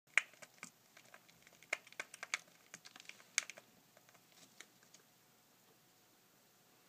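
Pet rat gnawing a hollow plastic Marshall Pop 'n Play ball-pit ball: an irregular run of sharp clicks and cracks of teeth on hard plastic, which stops about five seconds in.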